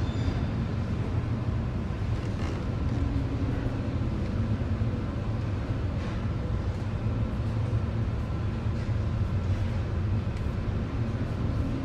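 Steady low rumble aboard a container ship driving into heavy storm seas: engine and hull noise mixed with wind and breaking water.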